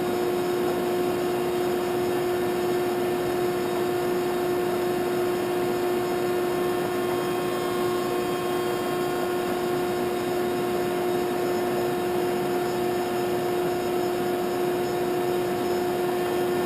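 Landis 2R universal grinder running: a steady hum with two clear tones over an even hiss. The wheel spindle runs quietly.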